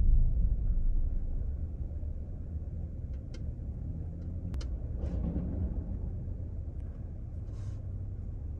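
Steady low rumble of a car idling, heard from inside the cabin, with a few faint clicks partway through.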